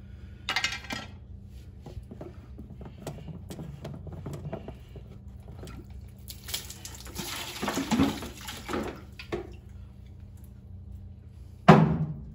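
A water-filled plastic filter housing of an APEC RO-90 reverse osmosis system being unscrewed by hand and lifted off: scattered plastic clicks and knocks, then water sloshing for about three seconds in the middle, and one loud knock near the end.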